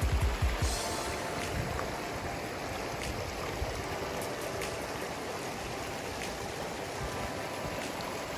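Flowing river water, a steady rushing noise, with a few low thumps near the start.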